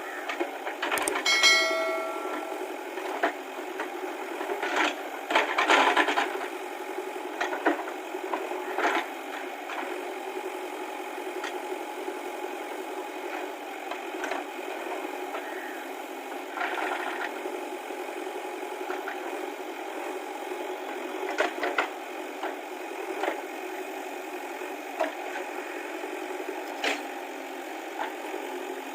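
JCB 3DX backhoe loader's diesel engine running steadily, with scattered metallic knocks and clanks from the working machine and a brief ringing tone about a second and a half in.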